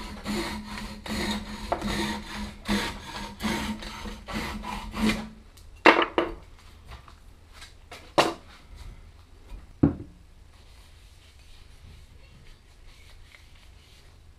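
Hand saw cutting through the end of a wooden wedge set in a hatchet handle's eye, in quick rasping back-and-forth strokes, roughly two a second, that stop about five seconds in. Three sharp knocks follow over the next few seconds.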